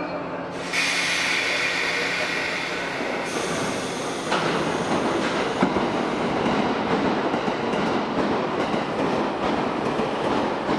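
JR East E217-series Yokosuka Line electric train running along the platform: wheel-on-rail rumble and rattle. A high hiss over the first few seconds gives way to the fuller rumble of the cars passing close by.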